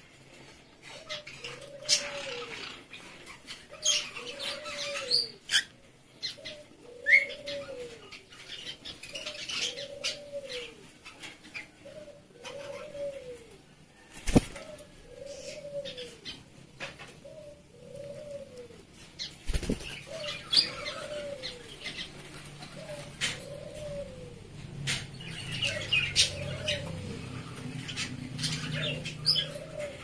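Budgerigars and cockatiels chattering in an aviary, with bursts of high warbling and chirps, over a low arched call repeated about every second and a half. Wings flutter now and then, and two sharp knocks come about halfway through.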